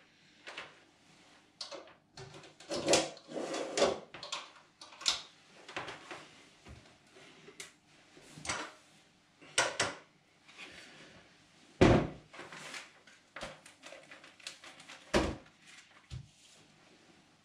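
Clicks, knocks and clatter of things being handled on a kitchen worktop, with two louder thumps about twelve and fifteen seconds in.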